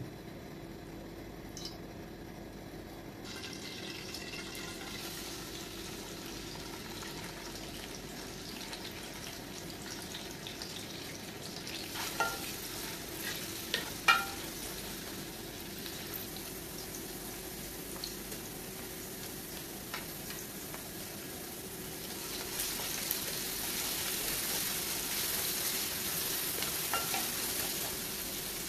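Sliced onions frying and sizzling in hot oil in an aluminium pot, stirred with a ladle. The ladle knocks on the pot with a ringing clank a couple of times midway, and the sizzle grows louder near the end.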